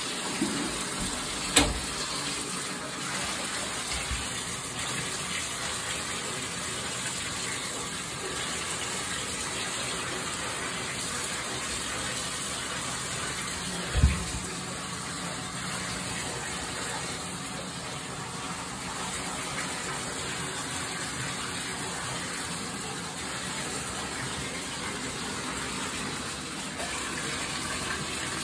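Water running steadily from a bathtub tap, filling the tub. Two sharp knocks stand out above it, one about a second and a half in and one about halfway through.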